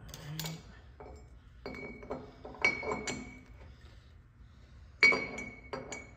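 Steel parts of a Powertrax Lock-Right drop-in locker clinking against each other and the differential case half as they are fitted together: a few light clinks at first, a cluster around the middle, and the loudest clink about five seconds in, which rings briefly.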